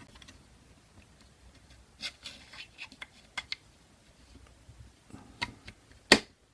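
Small parts of a KWA M11 airsoft gun's lower receiver being handled and fitted together by hand: scattered light clicks and taps of small pieces, with a sharper click just after six seconds in.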